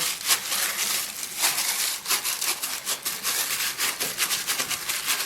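Hands stretching and folding a very soft, sticky dough: a quick, irregular run of rubbing and pulling noises, several strokes a second.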